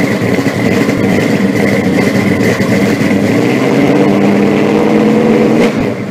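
Car engine running steadily, then fading out near the end.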